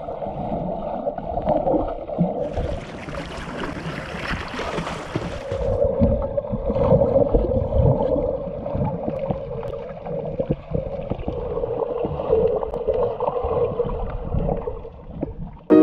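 Muffled underwater water noise, rushing and bubbling as snorkelers swim past the submerged camera. For about three seconds near the start it gives way to a brighter hiss of water heard above the surface.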